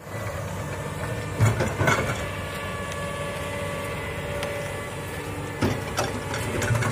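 Komatsu hydraulic excavator working: its diesel engine runs steadily, with a few sharp knocks and clanks from the machine about one and a half to two seconds in and again near the end.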